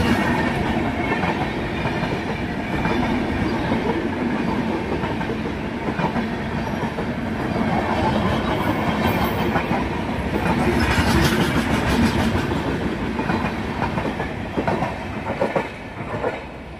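Passenger express coaches rolling past, wheels clattering rhythmically over rail joints, with the sound falling away near the end as the last coach passes.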